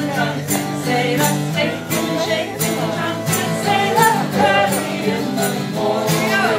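A song playing: a singing voice over held low notes and a steady beat of about two strokes a second.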